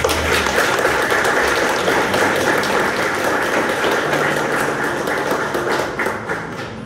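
Audience applauding, a dense patter of hand claps that starts suddenly and dies away near the end.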